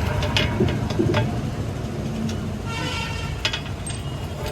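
Diesel engine of heavy machinery running steadily, with a few sharp knocks and a brief higher-pitched tone about three seconds in.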